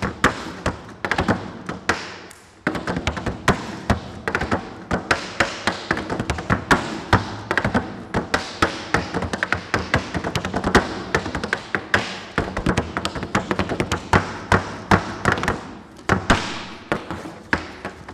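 Tap shoes striking a portable wooden tap board in a fast, rhythmic tap-dance passage: a dense run of sharp taps and heavier thuds, with a brief lull about two seconds in.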